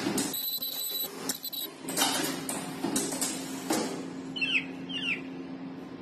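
Automatic mask ear loop machine running with a steady hum and repeated mechanical clicks and clacks as its head cycles. A high steady whine sounds for about a second and a half near the start, and short falling chirps come in pairs in the second half.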